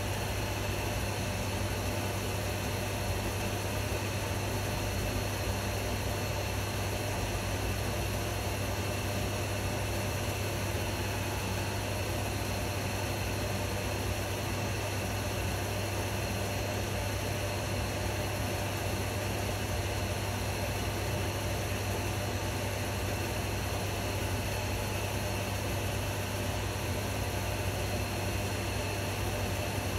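Steady low hum with an even hiss over it, unchanging throughout, with no separate knocks or events.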